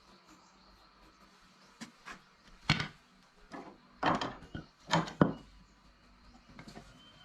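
Irregular wooden knocks and thuds, about eight in all, the loudest about three seconds in and two close together around five seconds.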